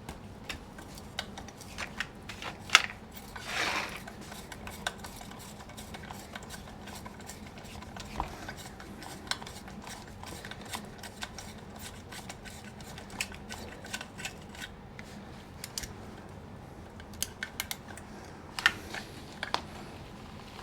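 Light metal clicks and clinks of hand tools working on a chainsaw's exhaust muffler screws, scattered irregularly throughout, with a brief scraping rustle about four seconds in, over a faint steady hum.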